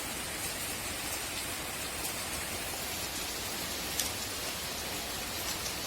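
Steady background hiss, with a light click about four seconds in and two faint ticks near the end, from the plastic pump housing parts being handled and fitted together.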